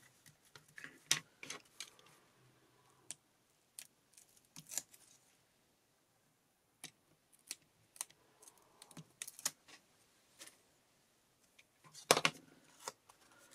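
Irregular light clicks and taps of small paper pieces and a pen-shaped craft tool being handled on a cutting mat, with a louder cluster of clicks near the end.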